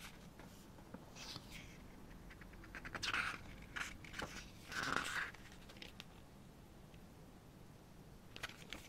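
Glossy photobook pages turned by hand: a few short paper rustles and swishes, the loudest about three and five seconds in, with small taps of fingers on paper in between.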